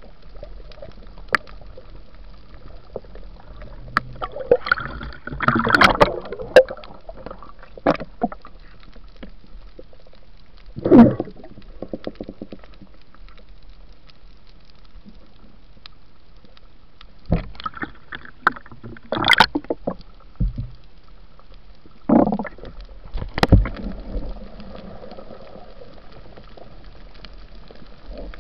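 Muffled underwater sound from a camera submerged with a night spearfisher: irregular gurgling and bubbling bursts with sharp clicks and knocks, over a steady faint hiss, quieter through the middle and near the end.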